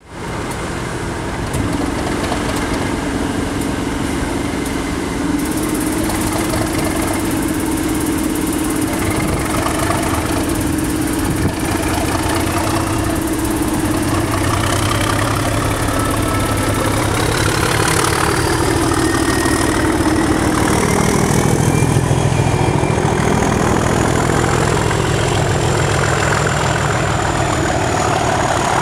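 Network Rail Class 97/3 diesel locomotive, a rebuilt Class 37 with an English Electric V12, pulling away under power with a test train: the engine thrashes hard and a turbocharger whistle rises steadily in pitch from about halfway through as the locomotive draws past.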